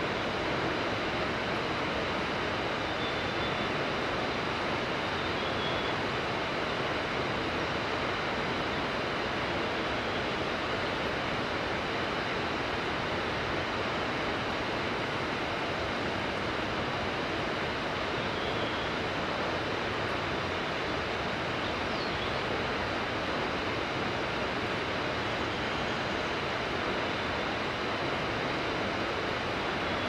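Steady rushing of a mountain river, an even, unbroken roar of flowing water.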